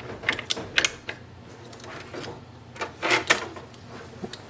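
Plastic ink cartridges being pressed into an Epson EcoTank printer's printhead carriage: two bursts of clicks and clatter, one just after the start and one about three seconds in, as each cartridge is seated and locks.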